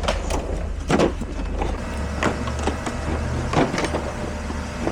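Metal tools clanking and knocking several times as they are handled, over a steady low motor-like hum.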